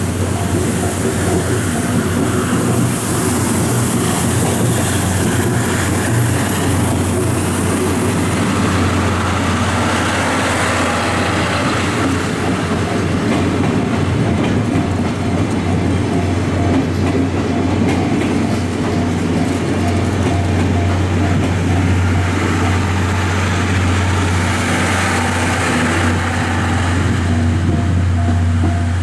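A train passing over a railway level crossing, its wheels clattering on the rails over a steady low hum. The crossing's warning signal is heard as an evenly pulsing tone near the start and again near the end.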